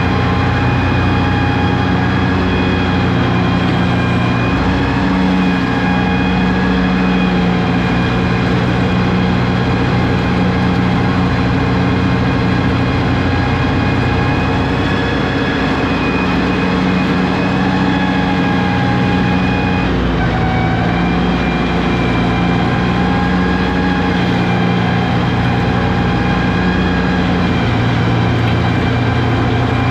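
Lawn tractor engine running steadily, its pitch shifting slightly about twenty seconds in.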